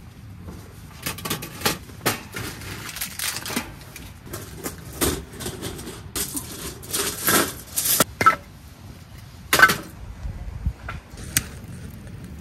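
Irregular clatter of small hard objects being handled and set down: scattered clicks and knocks, with a few brief ringing clinks, one of the loudest about two thirds of the way through.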